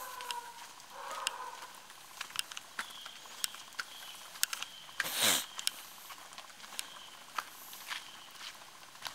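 Rain pattering in a wet forest, with scattered drops ticking on leaves and ground over a soft hiss. About five seconds in, a brief loud whoosh slides down in pitch.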